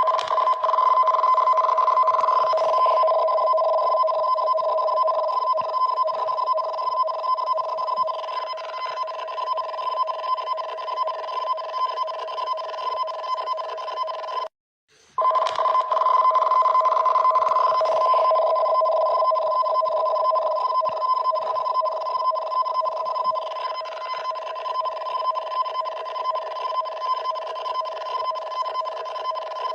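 Japanese emergency warning broadcast alarm for a tsunami warning: two tones, around 640 Hz and 1 kHz, switching rapidly into a harsh, steady warble. It breaks off for about half a second about halfway through, then starts again.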